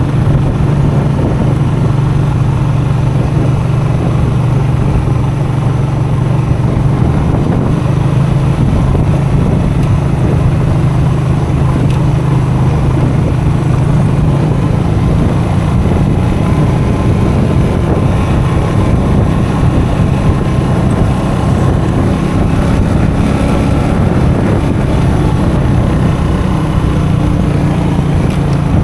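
Custom motorcycle's engine running under way as the bike is ridden off-road, a steady low engine note without breaks.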